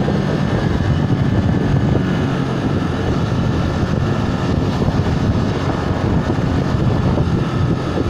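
Bajaj Boxer BM 125 X motorcycle's single-cylinder four-stroke engine running steadily at town riding speed, under a steady rush of wind and road noise.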